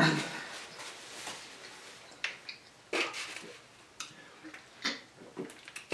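A person sipping and slurping soup from a bowl, close to the microphone: a louder sound right at the start, then scattered short wet slurps and mouth clicks.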